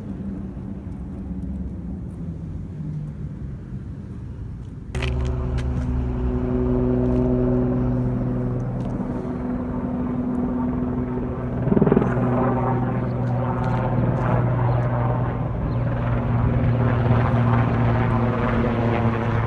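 A motor's steady low hum. It jumps suddenly to a louder, fuller hum about five seconds in, with a brief louder surge near the middle.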